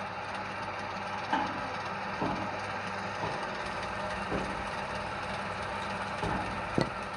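Wood lathe running: a steady motor hum under an even hiss, with a handful of short knocks, the loudest near the end.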